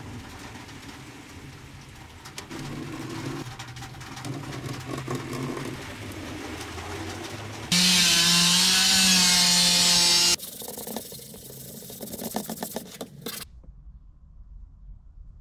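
An electric power tool runs for about three seconds, starting and stopping abruptly, among quieter handling noises and knocks.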